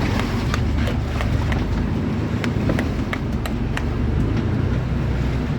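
A boat's motor running steadily under way, with scattered sharp clicks on top.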